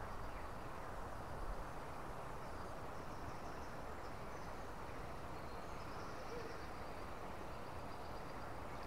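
Quiet, steady outdoor background noise on calm water, with faint, intermittent high-pitched chirping.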